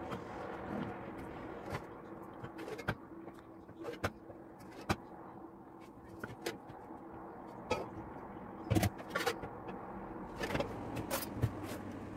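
Metal ladle and teaspoon clinking and scraping against an aluminium pot, a plastic funnel and glass jars while hot strawberry jam is spooned into the jars. Scattered sharp clicks and knocks, the loudest about nine and eleven seconds in, over a steady low hum.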